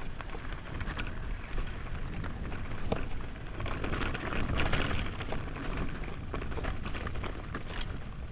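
Mountain bike rolling over a rough dirt track: tyre noise with many small clicks and rattles, and low wind rumble on the microphone. The tyre noise swells about halfway through.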